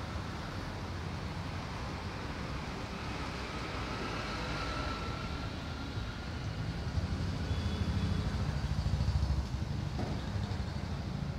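Steady low rumble of road traffic, swelling for a few seconds in the second half as a vehicle passes.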